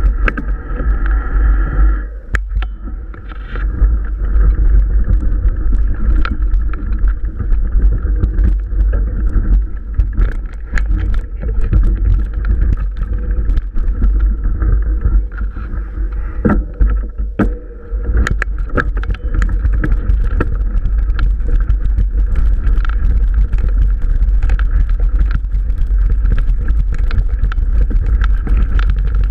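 Mountain bike riding over a rough dirt trail, picked up by an action camera mounted on the bike or rider: wind rumbling on the microphone under frequent knocks and rattles as the bike jolts over bumps.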